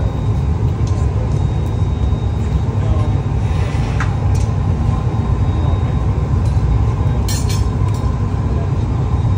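Steady low roar of a glass studio's gas-fired furnace and glory hole burners, with a few light clinks about two-thirds of the way through.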